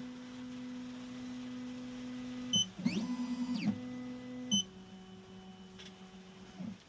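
Electronic key-cutting machine at work: its stepper motors give off steady whining tones that shift pitch in steps, with a rising then falling whine about three seconds in. Two short beeps come at about 2.5 and 4.5 seconds.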